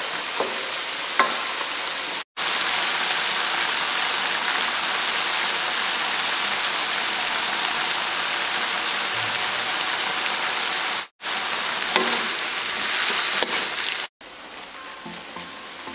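Broccoli, cauliflower and carrot stir-fry sizzling in a wok over a gas flame, a steady hiss, with a spatula clicking and scraping against the pan a few times as it is stirred. The vegetables are at the end of cooking, almost done.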